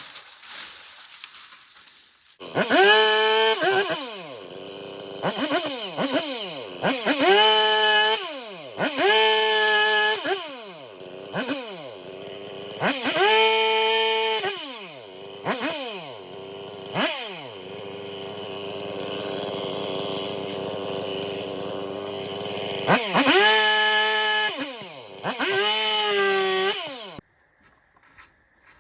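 Two-stroke chainsaw starting about two and a half seconds in. It is then revved hard in short bursts, seven in all, each falling back to a steady idle, with a longer spell of idling in the middle. The engine is switched off near the end.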